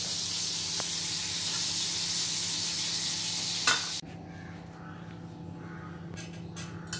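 Prawn vadas shallow-frying in hot oil in a pan: a steady sizzle. A sharp knock comes just before four seconds in, and the sizzle then stops suddenly, leaving quieter sound with a few faint clicks.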